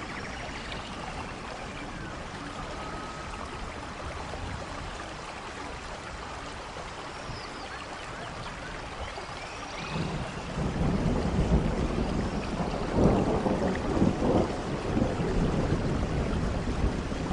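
Steady rain falling in a forest. About ten seconds in, a low rumble of thunder builds and rolls on, loudest a few seconds later.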